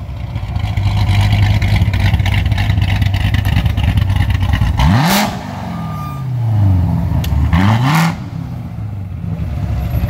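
Chevrolet C7 Corvette Stingray's 6.2-litre LT1 V8 with a big aftermarket cam and a Z06 factory exhaust, idling with a lumpy, pulsing beat. It is blipped twice, about five seconds in and again a little before eight seconds, each rev rising in pitch and dropping back to idle.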